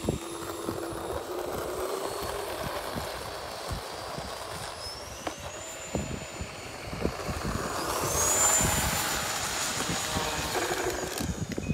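Radio-control model airplane engine sound running steadily. A high whine rises and then holds about five seconds in, and again about eight seconds in, where it is loudest.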